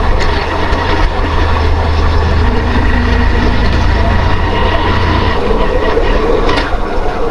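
Road traffic and vehicle engine noise, with a heavy deep wind rumble on the microphone from riding that eases after about five seconds.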